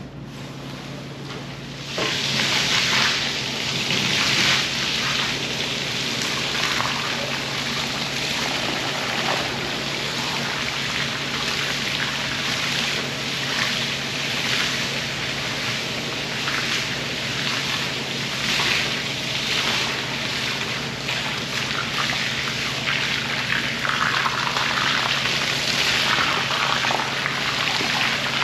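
Water spraying and splashing onto a wool rug being washed, starting abruptly about two seconds in and continuing with an uneven hiss, over a steady machine hum.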